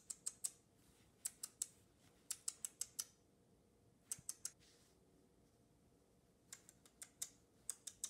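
Light, sharp clicks in quick bursts of three to six, in about six groups separated by short pauses.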